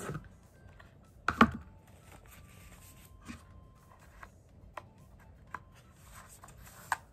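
Hands handling the Apple Pencil's box and paper inserts: a sharp knock about a second and a half in, then scattered light clicks and taps.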